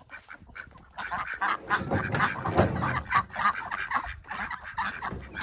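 A flock of domestic poultry calling, many short overlapping calls crowding together. The calls get louder about a second in.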